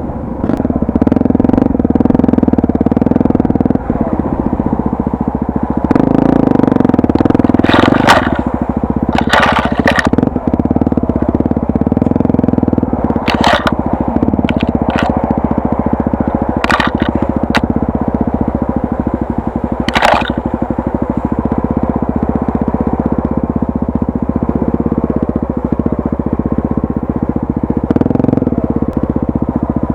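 Honda Tornado 250's air-cooled single-cylinder four-stroke engine running steadily, with several brief sharp noises over it about a third and two thirds of the way in.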